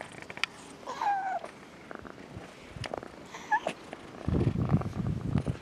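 A cat meowing once about a second in, with a short high chirp-like call a little past the middle, then loud close purring near the end as it seeks attention.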